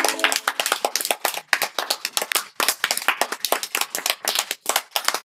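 A small group clapping, dense and irregular, thinning out and then cutting off suddenly near the end. The last held notes of a music jingle die away in the first half-second.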